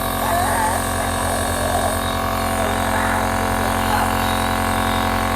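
Compressor nebulizer running with a steady electric buzzing hum, with a faint voice over it now and then.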